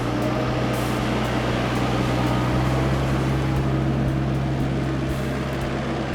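Mini excavator's diesel engine running steadily at an even pitch while it picks up a log.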